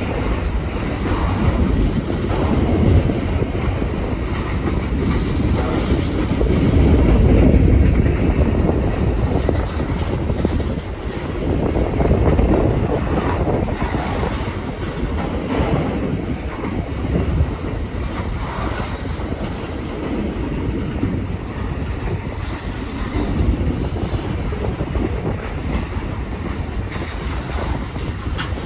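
Train cars rolling past at close range: a steady low rumble with wheel clatter over the rail joints, swelling and easing as the cars go by.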